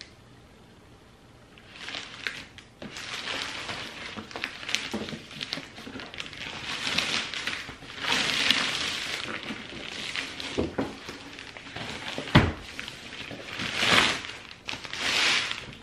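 Gift-wrapping paper rustling and crinkling as a present is wrapped by hand, starting about two seconds in, in repeated swells with small clicks and one sharp knock about twelve seconds in.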